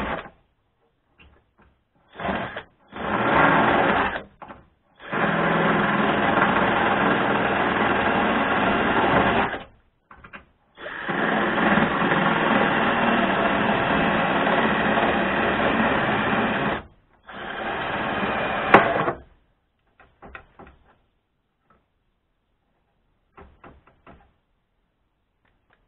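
Cordless drill drilling into the rusted steel of a car's sill panel, running in repeated bursts: two short ones, then longer runs of about five and six seconds, and a shorter last one. After that there are only a few faint clicks.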